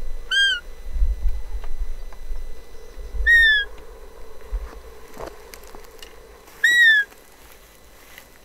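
Roe deer call (Buttolo-type rubber-bulb blatter) sounded three times, about three seconds apart. Each is a short whistling peep that rises then drops, imitating a roe doe to draw a buck during the rut. There is a low rumble under the first two calls.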